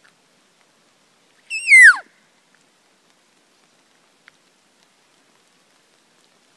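A single cow-elk mew call about a second and a half in: a loud, high whistle that rises briefly, then slides steeply down in pitch, lasting about half a second.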